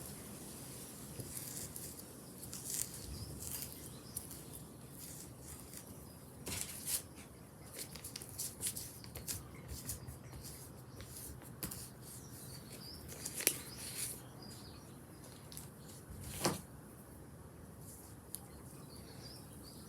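Scratchy rustles and light clicks from paper and plant material being handled and rubbed, with two sharper clicks about two thirds of the way through. Birds chirp faintly in the background.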